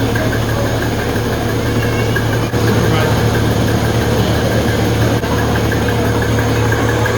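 Goat milking machine running: the vacuum system's steady hum, with the fast, even ticking of the pulsators.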